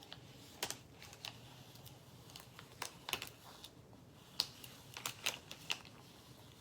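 Adhesive vinyl being peeled off a painted canvas: faint, irregular small clicks and crackles as the vinyl lifts away, about a dozen over a few seconds.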